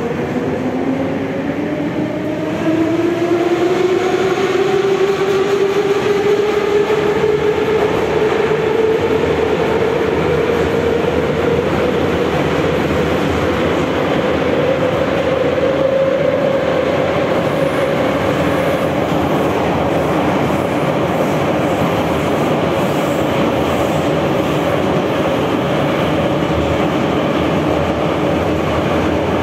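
Moscow metro train pulling away and running at speed. The traction motors' whine rises in pitch over the first ten seconds or so, then levels off over the steady running noise of the train.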